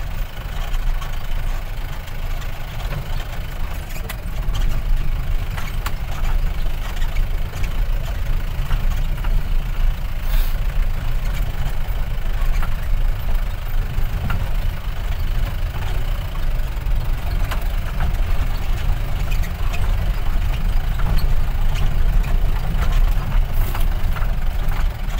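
Steady low engine and road rumble heard from inside the cabin of a vehicle moving slowly over a rough dirt road, with a few small rattles and knocks.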